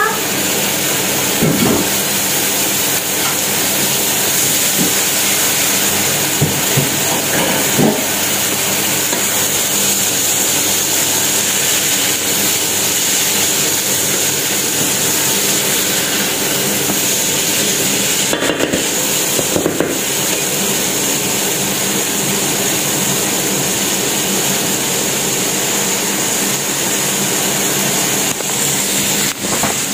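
Artichokes and ham sizzling steadily in a frying pan, with a wooden spatula stirring and now and then knocking against the pan.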